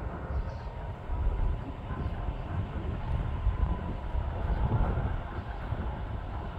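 Airbus A330 tanker's jet engines running, a steady rumble with a faint whine that sinks slightly in pitch, under heavy gusting wind buffeting the microphone.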